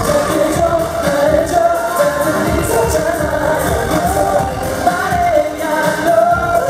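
A live K-pop boy-band performance: male singers on microphones over a loud pop backing track with a steady driving beat.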